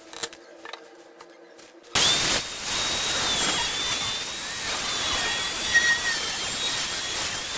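A few faint clicks, then about two seconds in a power tool starts abruptly. It runs on steadily with a high, slightly wavering whine over a harsh hiss.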